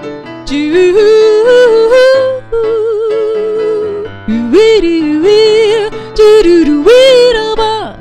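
Female voice singing a wordless passage of long held notes with vibrato and sudden leaps in pitch, over sustained electric keyboard chords.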